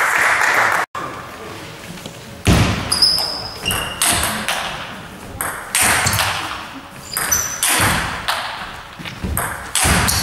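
Table tennis rally: the ball is struck by the rackets and bounces on the table about every half second, the clicks echoing in a sports hall, with a few short high squeaks. Applause at the start cuts off within the first second.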